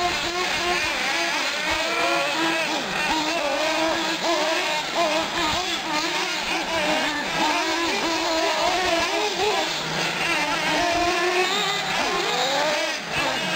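Several nitro-powered 1/8-scale RC trucks and buggies racing: their small two-stroke glow engines buzz and rev, the pitches of different cars rising and falling and overlapping as they accelerate and brake around the track.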